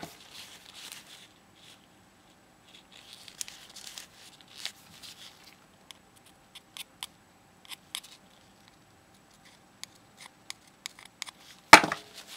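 Leftover toner-transfer paper being scraped and rubbed off a copper circuit board with a pointed tool and cloth: scattered short scratchy clicks and ticks. A sharp knock right at the start and a louder one near the end.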